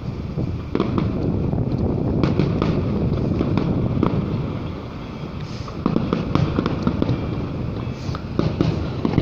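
Fireworks bursting in quick succession, many sharp pops and crackles over a low rumble, easing off for a moment around the middle and picking up again about six seconds in.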